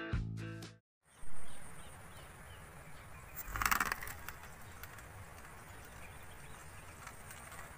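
Guitar music ends in the first second. It is followed by faint open-air ambience over a rice field with faint birdsong, broken by a short burst of noise about three and a half seconds in.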